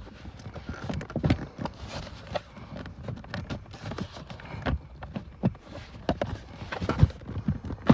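Irregular knocks, taps and clicks of plastic parts being handled and pushed into place under a car's dashboard during blower motor reassembly, with a few stronger knocks near the end.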